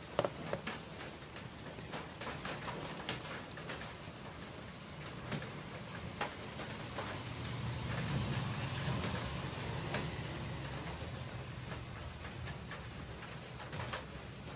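Scattered light clicks and taps of wires and a soldering iron being handled while leads are soldered onto a small transformer's terminals, over a steady low hum.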